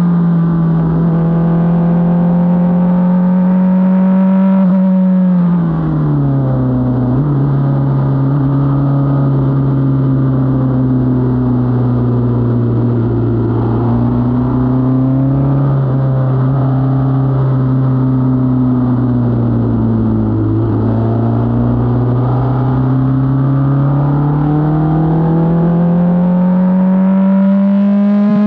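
Formula 4 race car's engine heard from the cockpit on a lap: it holds high, steady revs, drops sharply about five seconds in as the car slows, stays at lower revs through a long bend, then climbs steadily over the last several seconds as the car accelerates.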